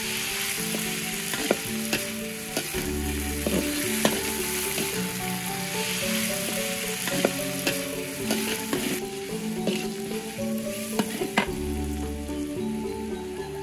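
Chayote strips stir-frying in a large metal wok: a steady sizzle, with the metal spatula scraping and clinking against the pan every second or so.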